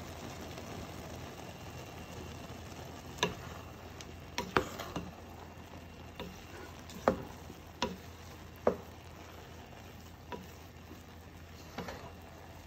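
A wooden spoon stirring and fluffing cooked rice in a stainless steel pot, knocking sharply against the pot about ten times at irregular intervals, over a steady faint background noise.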